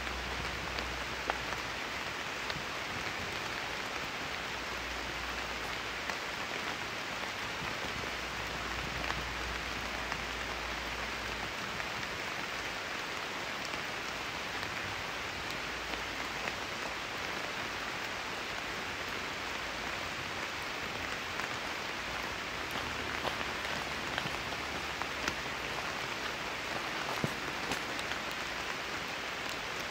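Steady rain falling in a cedar forest: an even hiss, with scattered single drops landing close by.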